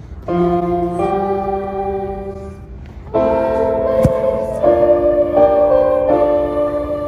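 Choir singing held notes with piano accompaniment, the chords changing every second or so. It grows louder about three seconds in.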